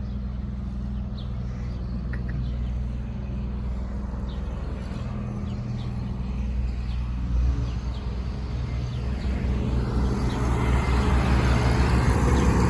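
A motor vehicle's engine running steadily with a low hum, with traffic noise swelling near the end as a vehicle comes closer; faint, scattered bird chirps.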